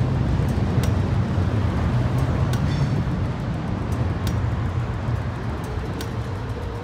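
Melbourne W-class tram running slowly past at street level: a low rumble with scattered sharp clicks from wheels and rails, fading over the last few seconds as it draws away.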